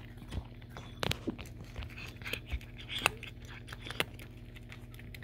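A cat eating crumbs of food: quick irregular crunches and clicks of chewing and nibbling.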